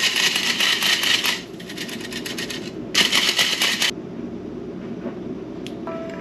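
Hand-cranked stainless steel flour sifter being cranked, a rapid scratchy rattling of its agitator against the mesh, in two bursts: one for just over a second at the start, then a shorter one about three seconds in.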